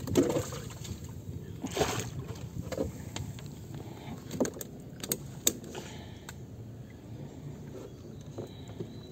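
Scattered light knocks and ticks of fishing gear being handled aboard a small wooden outrigger boat, over a low steady background. Two short rushing noises come near the start and about two seconds in.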